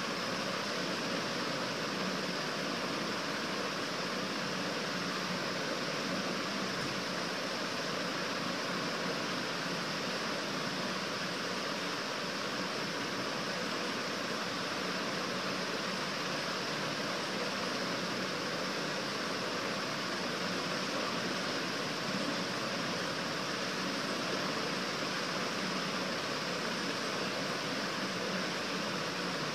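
A steady, even hiss of room noise that does not change.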